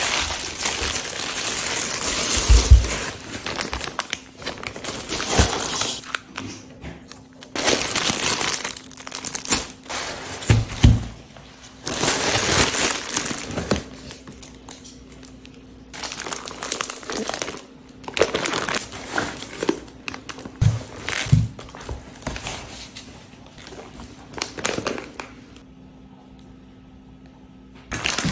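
Plastic shopping bags and plastic wrapping rustling and crinkling in bursts as groceries are handled and unpacked, with a few dull thuds of items set down on the table.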